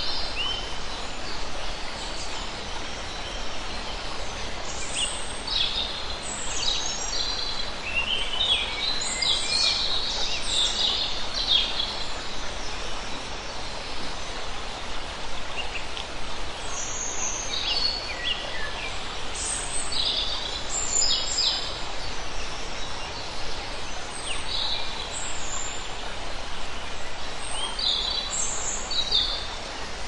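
A rocky forest stream running over stones in a steady rush, with wild birds calling and chirping over it in bursts and a lull in the middle.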